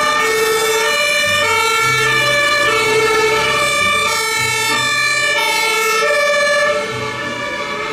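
A toy fire truck's electronic siren sound effect: loud synthesized tones stepping between pitches over a low bass line.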